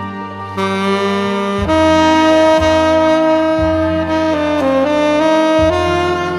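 Selmer Mark VI tenor saxophone playing a slow ballad melody in long held notes, over a backing track with a bass line that restrikes about once a second.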